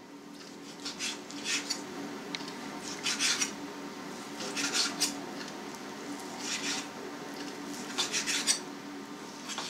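Kitchen knife cutting beaten raw meat into roughly centimetre-sized pieces on a cutting board: short scraping strokes, spaced irregularly every second or two.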